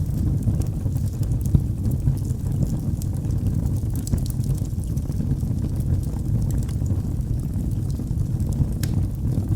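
Wood fire burning in a fireplace: a steady low rumble of flames with scattered faint crackles and pops.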